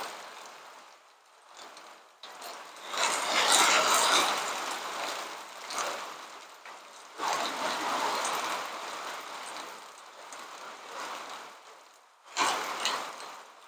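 Heavy rain driven by wind gusts. The noise swells sharply three times and fades away after each surge.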